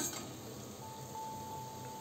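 A metal slotted spoon clinks once against a steel wok, then hot oil sizzles faintly as fried fish-roe fritters are lifted out. A faint steady high tone comes in about a second in.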